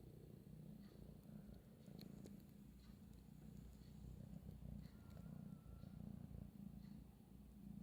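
Scottish Fold kitten purring faintly, a low rumble that swells and fades every second or so.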